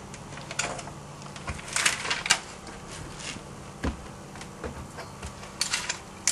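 Aluminium foil tape crinkling and crackling in irregular spells as it is handled and pressed along the sheet-metal edge of an air handler's access opening, over a low steady hum.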